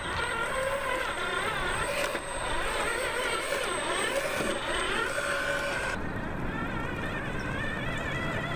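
Electric motor and drivetrain of a 1/10 scale RC4WD Desert Runner RC truck whining, the pitch rising and falling with the throttle as it drives. The sound shifts abruptly about two seconds in and again about six seconds in.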